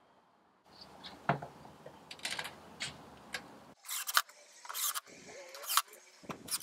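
Cordless drill driving screws in several short bursts, a fraction of a second each, into the enclosure's panel edge, after a few faint handling clicks.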